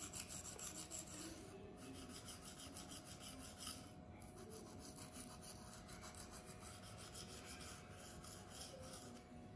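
Knife blade of 14C28 steel stroked back and forth over a Venev resin-bonded diamond sharpening stone: a faint, steady run of repeated rasping strokes.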